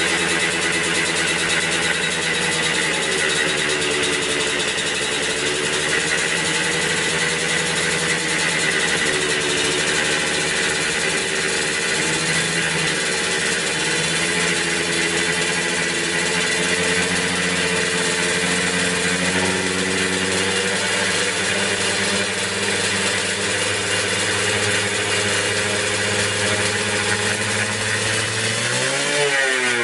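Suzuki Satria single-cylinder two-stroke engine idling while its carburettor is adjusted, the idle speed drifting gently up and down. It revs up briefly near the end.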